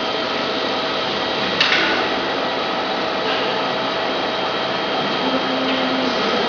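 Steady whirring hum of factory machines, with one sharp click about a second and a half in as the metal foil-roll shaft and its spring-loaded retaining disc are handled.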